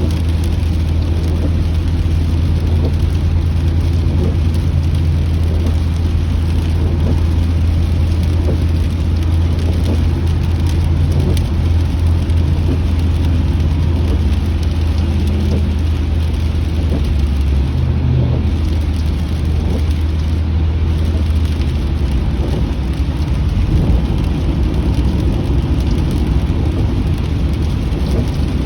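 Inside a car driving in the rain: a steady low drone of engine and road noise under an even hiss of rain on the car. The low drone shifts in pitch about two-thirds of the way through.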